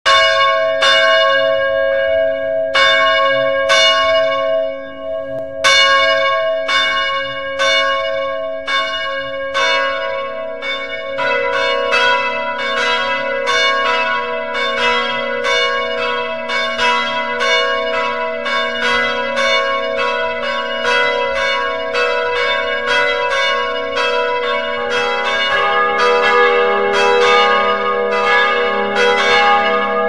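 Church bells ringing. At first single strikes come about once a second, each left to ring on; from about ten seconds in more bells join, striking faster and overlapping.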